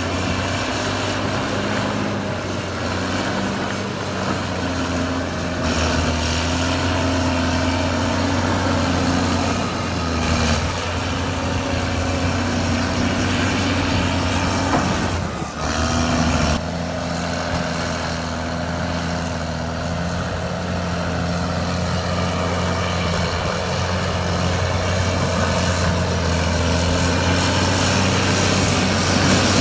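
Caterpillar D6R2 bulldozer's diesel engine running while working, a steady low hum whose note shifts a few times as the load changes, with a short break about halfway through.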